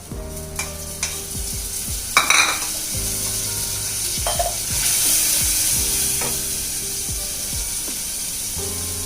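Masala paste added to onions frying in hot oil in a pan: a loud burst of sizzling about two seconds in, then steady sizzling while it is stirred.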